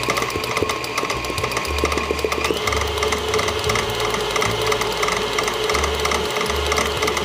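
KitchenAid stand mixer running with its paddle attachment, creaming peanut butter and sugar: a steady motor whine with a fast, even clatter from the paddle and gears. The whine shifts a little higher about two and a half seconds in.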